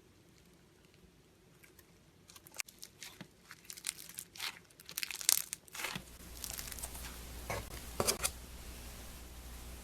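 Slime being squeezed and worked by hand, giving an irregular run of crackling clicks and pops that starts about two seconds in and is loudest near the middle and again near the end.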